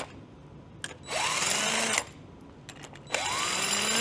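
Cordless drill spinning a socket on the threaded rod of a shock-absorber spring compressor in two short runs, the second starting about three seconds in. Each run whines up in pitch as the motor speeds up, backing the compressor off to release the coil spring.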